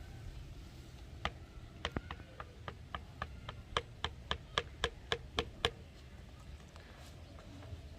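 A run of about fifteen sharp clicks or taps, about three to four a second, growing louder towards the end and stopping suddenly, over a low background rumble.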